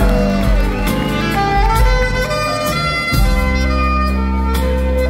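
Rock band playing live, with drums and bass under a wind-instrument lead that holds long steady notes.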